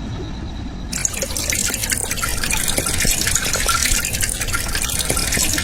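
Water running or pouring in a dense splashing hiss that starts abruptly about a second in, over a steady low rumble.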